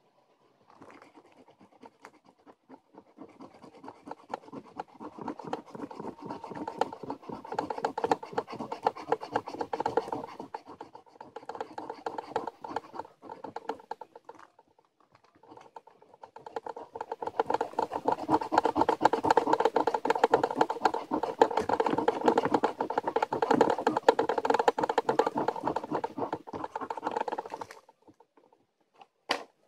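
Scratching the coating off a scratch-off lottery ticket: rapid scraping strokes in two long spells with a short pause between, the second spell louder. A couple of sharp clicks come near the end.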